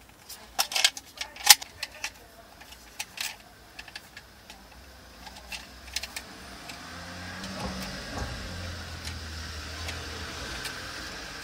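Sharp plastic clicks and clacks from a universal smartphone/tablet car holder as its clamp arms and joints are worked by hand, thickest in the first few seconds. From about six seconds in, a steady low hum comes up and holds.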